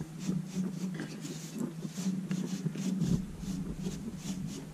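Light scraping strokes of a hand tool on a freshly plastered wall, repeating about three times a second, over a steady low hum.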